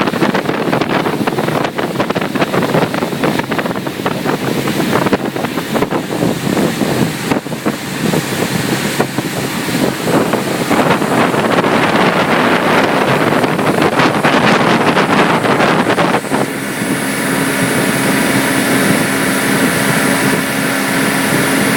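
Wind buffeting the microphone over the rushing water and engine noise of a moving boat. About sixteen seconds in the wind noise eases and a steady engine drone with a constant pitch comes to the fore.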